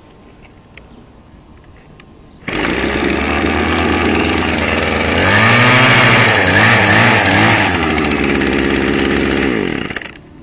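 Small two-stroke string trimmer engine catching on a warm start about two and a half seconds in and running at a high, buzzing speed, revved up and down in the middle, then winding down and cutting off near the end.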